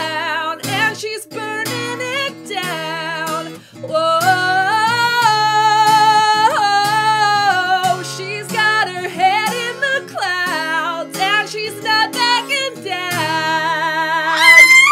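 A woman singing a slow pop melody with long held notes to her own acoustic guitar.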